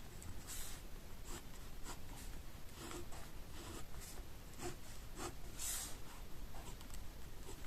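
Faint, irregular scratching and rubbing strokes, roughly two a second, over a low background hum.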